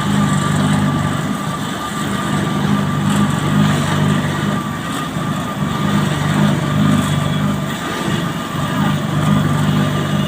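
Diesel engine of asphalt-paving machinery running steadily at a constant speed, with a thin steady whine above the engine hum.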